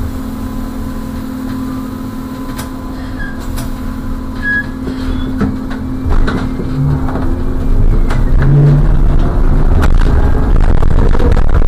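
Ride noise inside a bus as it moves off and drives along: a steady hum, then a low rumble that grows louder as it picks up speed about halfway through, with scattered rattles and knocks.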